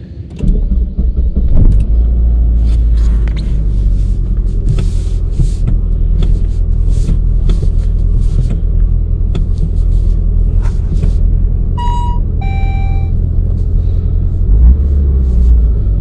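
2003 Saab 9-5 Aero's 2.3-litre turbocharged four-cylinder starting: a brief crank about half a second in, catching within about a second, then a steady idle rumble heard from inside the cabin. Two short beeps sound near the end.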